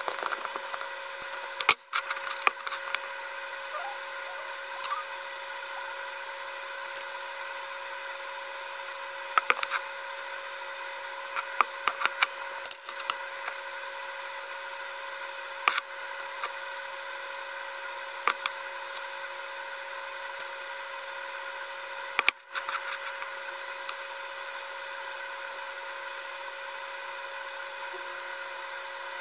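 A steady machine-like hum runs throughout, with scattered small clicks and taps. Near the start these come from a thin wooden stick tapping and scraping in a small plastic lid as it stirs powder.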